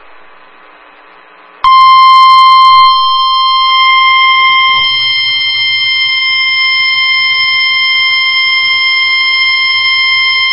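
NOAA Weather Radio 1050 Hz warning alarm tone: a single steady high-pitched beep that starts about two seconds in and holds for about nine seconds, easing slightly in level after its first second. It is the alert signal that precedes a new warning broadcast.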